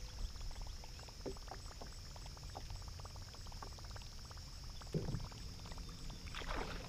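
Fishing reel being cranked on a retrieve, a fast, faint, irregular clicking, over a steady high drone of crickets. A short, louder low knock sounds about five seconds in.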